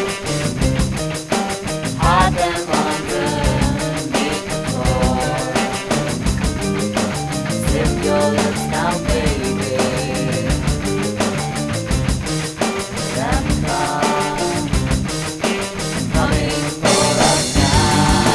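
Rock band demo recording: an instrumental passage with a drum kit and pitched instruments, turning louder and fuller near the end.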